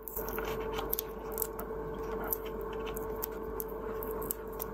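Fingernails picking and scratching at the clear plastic shrink-wrap seal around a body scrub container's lid, making scattered small clicks and crinkles over a steady faint hum.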